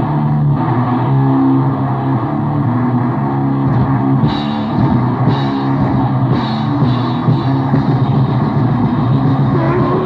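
Grindcore demo recording playing loud and dense, with distorted guitar and drums and a muffled, lo-fi top end.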